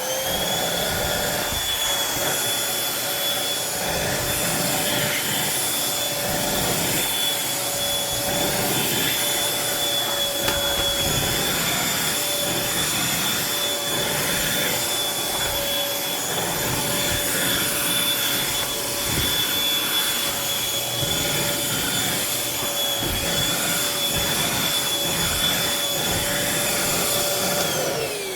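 Bissell Featherweight 2033Y corded stick vacuum, in handheld mode with a nozzle, vacuuming a furniture cushion. Its motor switches on and spins up with a rising whine right at the start, runs at a steady pitch with a loud airflow rush, and spins down with a falling whine near the end as it is switched off.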